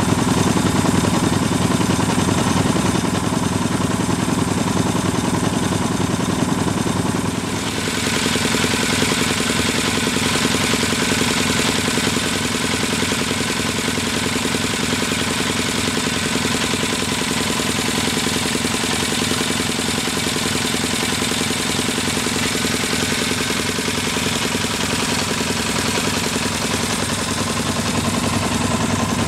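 Albin O-21 two-cylinder inboard marine engine running steadily at cruising speed. Its tone changes a little about eight seconds in, then holds steady.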